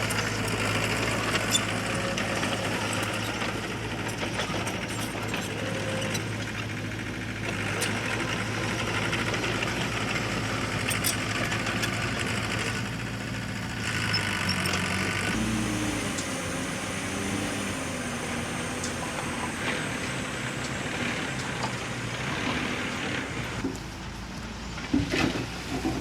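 Heavy diesel earth-moving machinery running with a steady low drone and mechanical hiss. The engine note shifts about halfway through, and a few sharp knocks come near the end.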